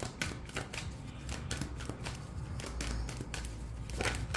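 Tarot cards being shuffled and handled by hand: a run of quick, irregular soft flicks and taps, several a second.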